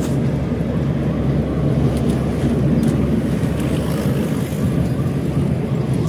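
Inside a Tata Nano driving along a road: a steady low engine hum mixed with road and wind noise.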